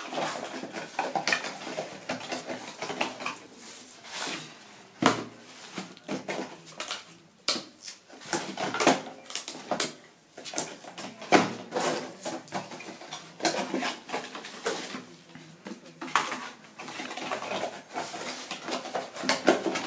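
Paper-and-cardboard ground chakra fireworks clattering and scraping as they are picked up by hand and packed into a cardboard box, a busy run of irregular taps and rustles.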